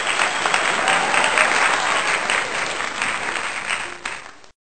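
Applause: dense clapping at a steady level that cuts off abruptly near the end.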